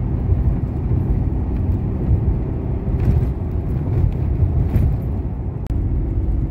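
Steady low rumble of a moving truck's engine and tyres, heard from inside the cab. It breaks off briefly near the end and comes back as a steadier hum.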